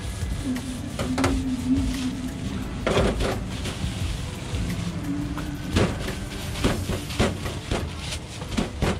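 Pizza dough being worked on a steel counter: a few light knocks and taps as the wooden rolling pin is used and set down and gloved hands press the dough, over background music.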